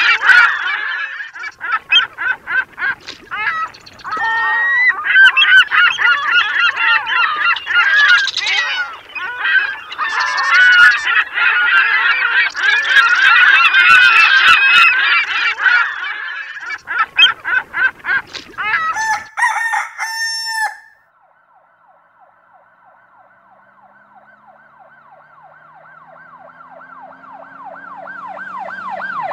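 Many birds calling loudly over one another in a dense chorus, breaking off about two thirds of the way through. A faint steady tone follows and grows louder toward the end.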